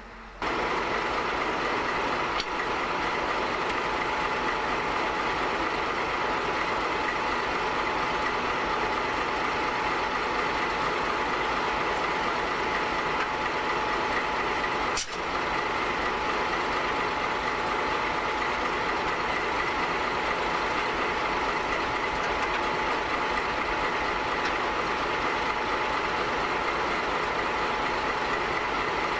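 Diesel locomotive engine idling, a steady hum with a high steady whine over it, and a single sharp click about halfway through.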